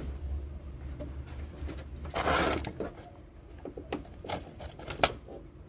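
Handling noise from a TV's LCD panel and frame being worked into place: a brief scraping rustle a little past two seconds in, then a few sharp clicks and taps near the end.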